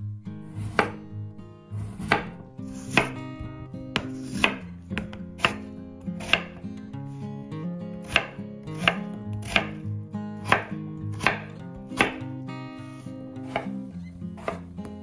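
Knife chopping on a cutting board in steady strokes, a little more than one a second, over background music.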